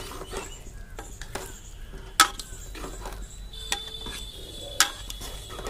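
Steel ladle stirring chickpeas in gravy in a metal pot: a soft wet stirring with a few sharp clinks of the ladle against the pot, the loudest about two seconds in and again near the end. A faint steady high tone joins about halfway through.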